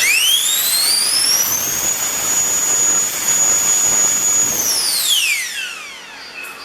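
A 120mm all-metal electric ducted fan running on 14S spools up quickly to a high, steady whine with a rush of air. It holds full speed for about two and a half seconds, then winds down as the throttle is cut.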